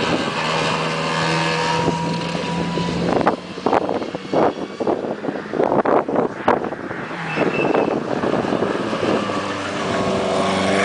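Race car engine running at steady high revs as an open-wheel single-seater passes on the track. In the middle there are a few seconds of wind buffeting the microphone. Near the end another race car's engine comes up again.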